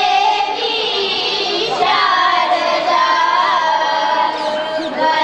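A small group of girls singing a devotional hymn to the goddess Sharda (Saraswati) together into handheld microphones, with long held, gliding melodic notes.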